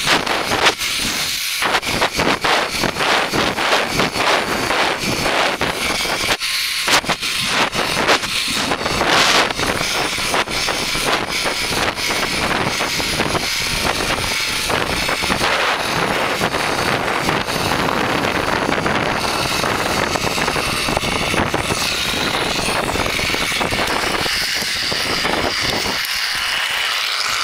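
Wind rushing and buffeting on the microphone as a rider slides fast down a long zipline, with the trolley running along the cable. The rush eases a little near the end as the ride slows.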